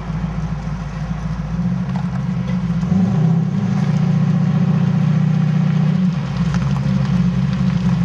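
A 1969 Ford Mustang's 357-cubic-inch V8 runs at low revs as the car rolls slowly away. The revs rise a little about three seconds in and settle back down about three seconds later.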